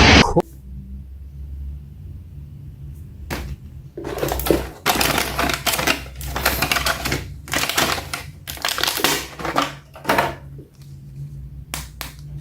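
Hands handling a plastic action figure and its packaging: irregular runs of crackling clicks and rustles for several seconds, then a few isolated clicks near the end, over a steady low hum. A loud sound cuts off right at the start.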